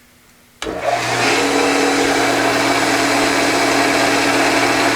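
A CNC wood lathe is switched on about half a second in and runs steadily, with a low hum under a loud hiss.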